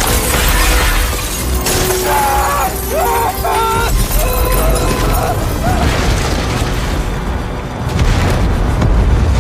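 Film earthquake sound mix: a heavy, continuous low rumble with crashes and shattering debris over a music score. Voices cry out about two to four seconds in.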